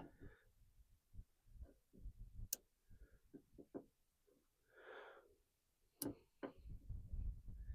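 Faint, scattered clicks and small handling bumps of a plastic backup camera being pried out of its housing with a makeshift tool. Three sharp clicks stand out, about two and a half seconds in and twice near six seconds.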